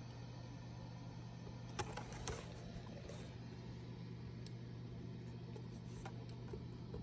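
Low steady hum with a few faint clicks, the two loudest about two seconds in.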